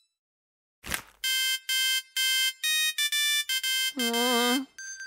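Tinny electronic beeping melody from a musical greeting card's sound chip, played note by note after a short swish about a second in. Near the end the notes give way to a lower, wobbly warbling tone.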